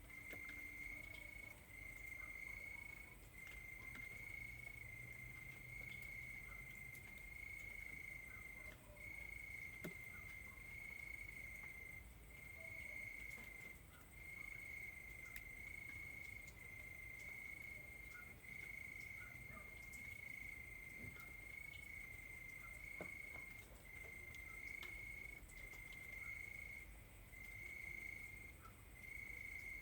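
Crickets chirping: one high, steady-pitched trill that sounds for about a second, breaks briefly, and repeats at an even pace, faint against a soft low rumble.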